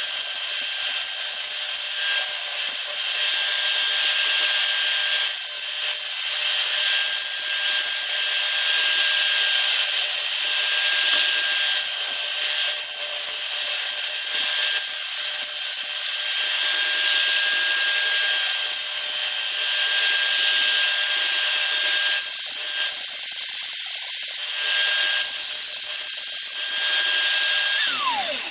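Electric drill driving a homemade mini lathe, running with a steady whine, while a flat file rasps against the spinning horn ramrod tip in repeated strokes to shape its decoration. Near the end the drill is let go and its whine falls away as it spins down.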